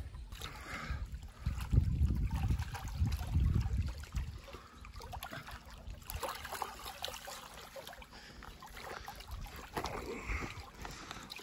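Small waves lapping and splashing at a lakeshore, a faint irregular patter of water. A low rumble on the microphone in the first few seconds.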